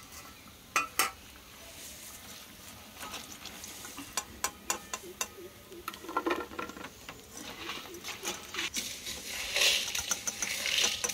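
A wire-mesh skimmer clinking and scraping against a steel frying pan and a plate as fried goja are lifted out of the hot oil, with scattered sharp clinks. The oil sizzles, louder near the end.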